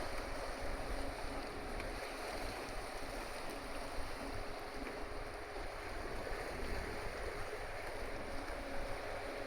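Tokyo Bay car ferry Kanaya Maru under way, a steady engine hum with a few faint held tones over a constant rush of water and wind.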